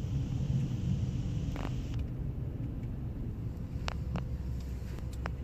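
Car's engine and road rumble heard from inside the cabin as it drives slowly. Tyre and wind hiss fades about two seconds in while the low rumble carries on, with a few faint clicks.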